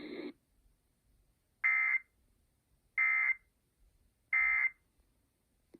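Emergency Alert System end-of-message data bursts: three short, identical, buzzing digital tones about a second and a half apart, signalling the end of the alert.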